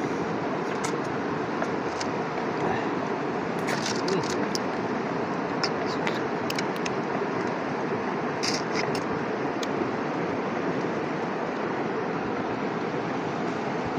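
Steady rush of a river flowing over rocks, with scattered small clicks and clinks of snail shells being picked out of a metal pot.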